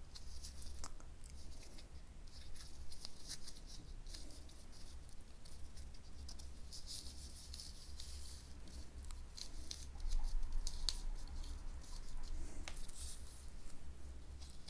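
Faint handling of a small plastic yo-yo and its string: soft scratching and rubbing with scattered small clicks as the string is pulled out and fiddled with.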